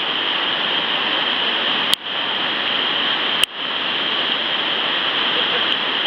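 White water rushing steadily over a river weir, a loud unbroken roar of churning water. Two sharp clicks with a momentary drop in level break it, about two seconds and three and a half seconds in.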